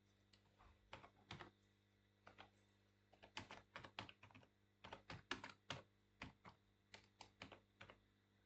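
Faint typing on a computer keyboard: irregular runs of quick keystrokes, starting about a second in and coming in bursts, with a steady low hum beneath.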